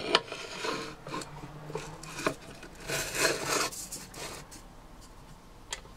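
Metal profile sliding and scraping against the small bandsaw's vise as it is repositioned by hand and the clamp is worked, with a few light metal knocks.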